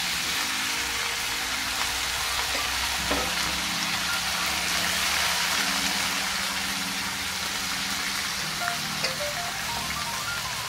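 Marinated chicken pieces frying in hot oil in a wok: a steady sizzle of spitting oil.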